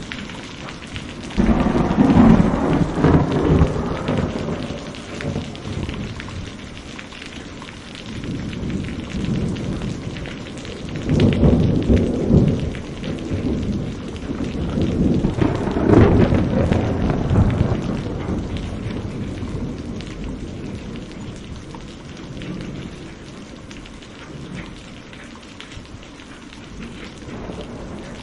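Steady rain with thunder. A clap breaks in suddenly about a second and a half in and rolls away over several seconds, then two more long rumbles build and fade around the middle.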